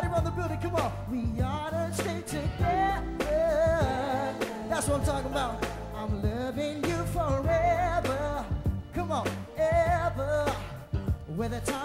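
Live gospel-soul band with a male lead singer: the voice bends and wavers through sung runs over a steady bass line and regular drum hits.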